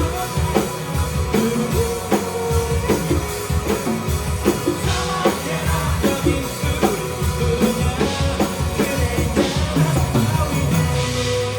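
Live band playing a rock song: a drum kit keeps a steady beat under the other instruments.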